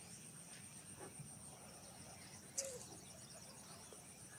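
Faint, steady high-pitched insect chorus, with a single short sharp click about two and a half seconds in.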